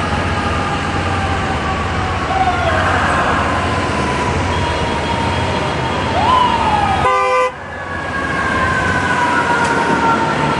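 Several fire truck and ambulance sirens wailing at once over city traffic, their tones slowly falling. One siren makes a quick rising-and-falling sweep about six seconds in, followed a second later by a short horn blast.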